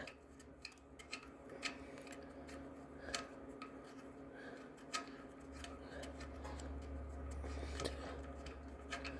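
Faint scattered clicks and light taps of small parts being handled as a lawnmower carburetor is taken apart, a few each second or so, over a steady low hum.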